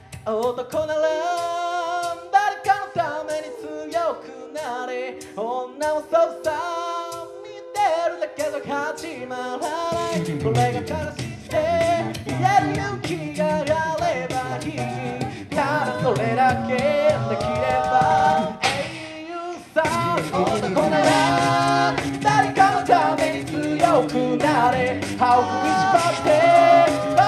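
Mixed-voice a cappella group singing a song in close harmony, with a beatboxer's vocal percussion. About ten seconds in a bass voice joins, and after a short break near the twenty-second mark all the voices come back in fuller and louder.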